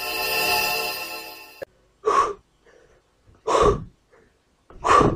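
A held musical chord that cuts off sharply after about a second and a half, followed by three hard puffs of breath blown out by a man, about one every second and a half.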